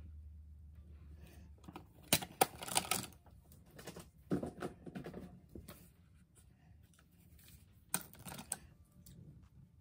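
Makeup cases and brushes being handled and set down: clusters of sharp plastic clicks and clatter about two seconds in and again near eight seconds, with a rustling shuffle in between.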